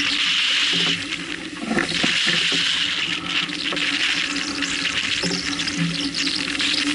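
Sea water rushing and splashing along the hull of a sailboat heeled under sail, with a steady low hum underneath.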